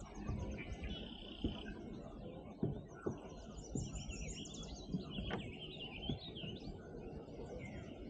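Several songbirds singing and chirping together in overlapping phrases, over a steady low rumble with a few short knocks.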